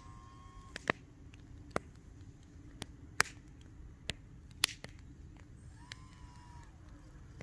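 About ten sharp, irregularly spaced clicks over a faint low rumble. About six seconds in, a faint whine rises and falls in pitch.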